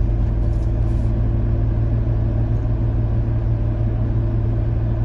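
A vehicle's engine idling steadily: an even low hum that holds unchanged while the vehicle stands still.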